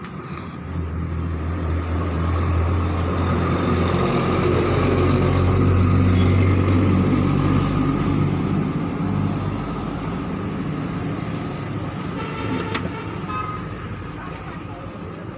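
Hot air rework station gun blowing: a steady rushing with a low hum that swells over the first few seconds and eases off toward the end.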